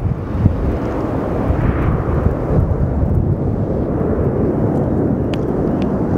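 Airbus A380 jet engines heard from the ground during a banking flypast: a loud, steady, low rumble that swells slightly in its middle range about two seconds in.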